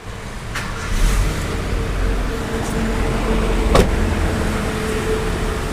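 Car engine running at idle, a steady low rumble with a faint steady whine above it. A sharp click comes a little before four seconds in.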